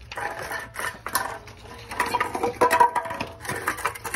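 Dog eating wet food from a metal bowl: a quick, uneven run of chewing and lapping clicks, with the bowl clinking and ringing under its muzzle in the second half.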